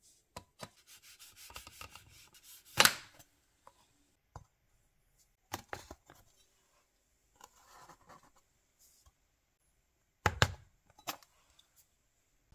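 Knife chopping a milk chocolate bar on a hard work surface: scattered cracks, scrapes and knocks, with two loud strikes, about three seconds in and about ten seconds in.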